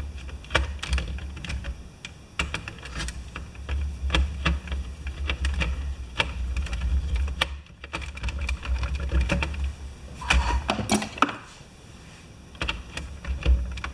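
Small screws being driven and small plastic parts being handled on a scale model fire truck's gearbox: irregular sharp clicks and taps, with low bumps of handling underneath.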